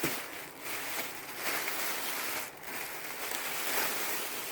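Rustling and handling noise as dresses are taken out of a box, rising and falling in waves with a brief lull about two and a half seconds in.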